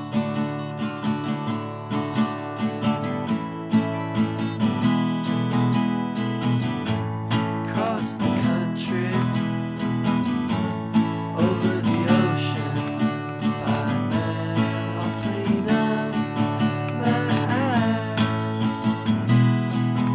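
Music: an acoustic guitar strummed in a steady rhythm, with a wavering higher melody line coming in a few times over it.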